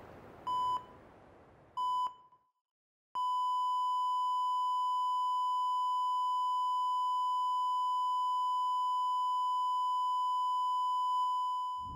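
Patient heart monitor beeping twice, then a single unbroken flatline tone that holds for about nine seconds before fading out: the sign that the patient's heart has stopped.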